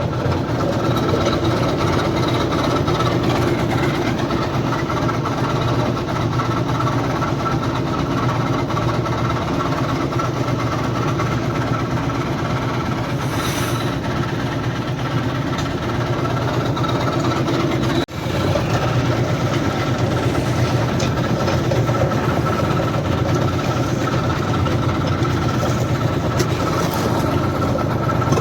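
Diesel concrete mixer machine running steadily, with a momentary break about two-thirds of the way through.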